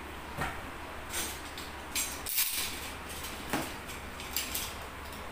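Handling noise of a cardboard amplifier box being opened: scattered light knocks, scrapes and rustles, with a few short sharp clicks spread through.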